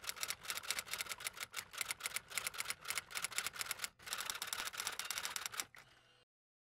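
Typewriter typing sound effect: a fast run of key clicks, about eight to ten a second, with a short pause about four seconds in, stopping shortly before the end.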